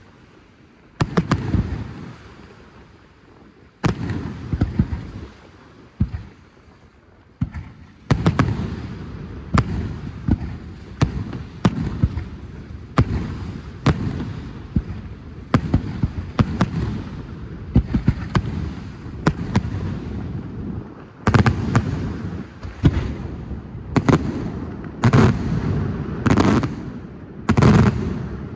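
Fireworks display: firework shells bursting as sharp bangs, each trailing a low rumbling echo. A few isolated bangs with gaps between them are followed, from about eight seconds in, by a quicker run of one or two a second, with the loudest bursts near the end.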